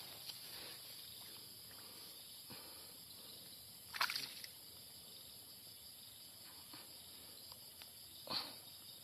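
Faint rice-paddy ambience: a steady high insect hiss, with two brief swishing sounds, about four seconds in and again just after eight seconds, from movement through the water and rice plants.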